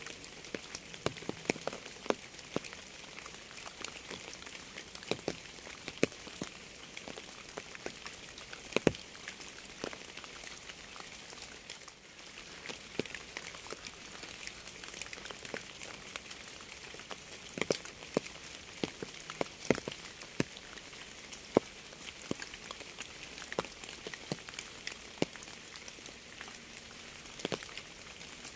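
Steady rain: a soft hiss with individual raindrops striking a surface as scattered, irregular sharp taps.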